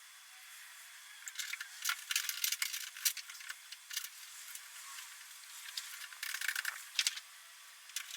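Irregular clicks, rattles and scrapes of hardware and tools being handled while fitting a folding tonneau cover to a pickup bed, busiest around the middle and again near the end, with quieter gaps between.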